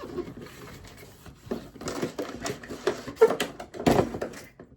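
Keyboard accessories and their cardboard and plastic packaging being handled: a run of rustles, light taps and knocks, busier after the first second and a half, with one louder knock near the end.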